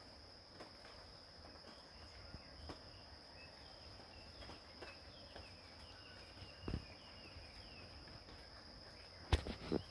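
A steady, high-pitched insect drone, with a few faint bird chirps in the middle. A soft thump comes a little past halfway, and a sharp knock with a few clicks comes near the end.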